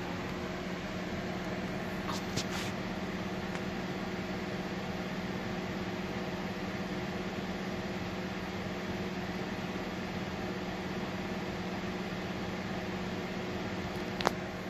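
Mitsubishi Lancer Evolution X's electric radiator cooling fan running steadily with a low hum, heard from inside the cabin with the ignition on and the engine off while the ECU is being flashed. A few light clicks about two seconds in and a sharp click near the end.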